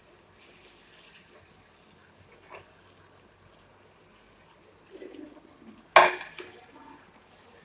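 A metal spatula scraping and tapping in a nonstick frying pan as pan-fried taro patties are turned, over a faint sizzle of oil. About six seconds in comes one sharp clack of the spatula against the pan, the loudest sound.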